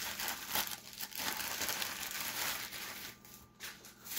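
Plastic bread bags crinkling and rustling as loaves are handled and packed into a plastic carrier bag, briefly quieter a little past three seconds in.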